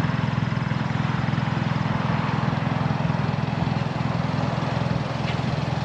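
A car engine idling steadily, with an even, rapid pulsing.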